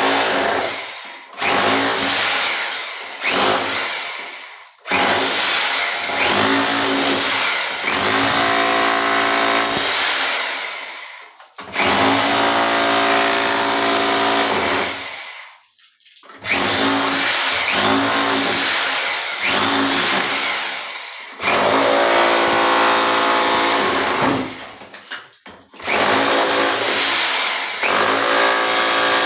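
Total 1500 W electric rotary hammer with a chisel bit, run in about ten short bursts. Each burst starts suddenly at full speed and its pitch falls away as the trigger is let go and the motor winds down.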